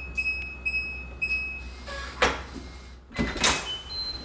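Digital keypad door lock beeping as a code is punched in, several short key tones. About two seconds in, the lock clunks and the door opens, and the lock plays a short rising unlock chime near the end.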